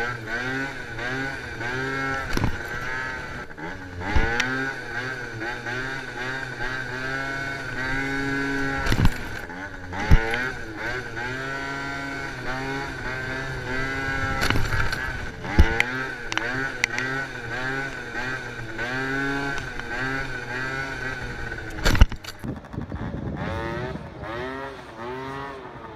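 Two-stroke 50cc engine of a Genuine Roughhouse R50 scooter revving up and falling back over and over as the rider blips the throttle for wheelies, with a few sharp knocks along the way. Near the end the scooter is heard from farther off.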